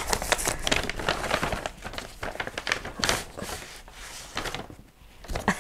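Paper envelope being handled and opened: irregular rustling and crinkling of paper as its contents are drawn out, dying down briefly near the end.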